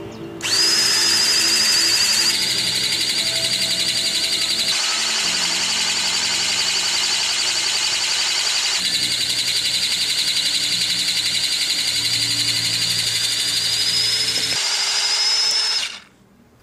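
A loud, high-pitched, alarm-like tone with a rapid flutter, held for about fifteen seconds over low sustained music, cutting off suddenly near the end.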